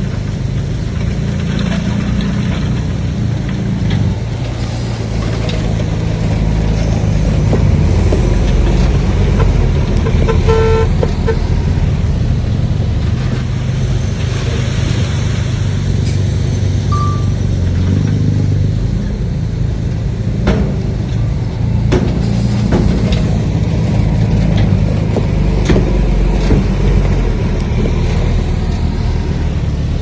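Heavy diesel engine of a Komatsu bulldozer running steadily while working, with a short vehicle horn toot about ten seconds in and a few sharp metallic knocks.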